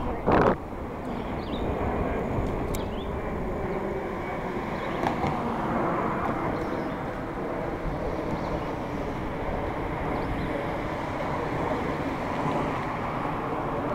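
Steady rushing wind and road noise on the microphone of a camera riding along on a bicycle, with one short loud thump about half a second in.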